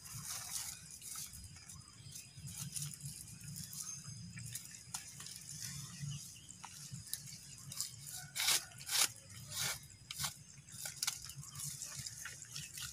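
Sack and twine rustling and crackling as a sacked root ball is tied to the seedling's trunk, with a run of sharper crackles about eight to ten seconds in.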